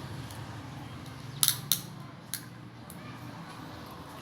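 A few sharp clicks and snaps of a cooked shellfish shell being worked open by hand, three close together about a second and a half in and one more a little later.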